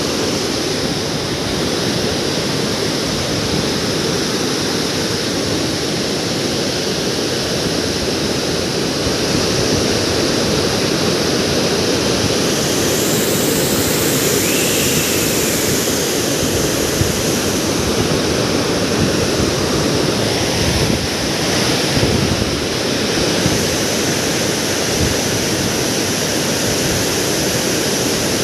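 Floodwater pouring through Binga Dam's open spillway gates and rushing down the concrete spillway: a loud, steady roar of water.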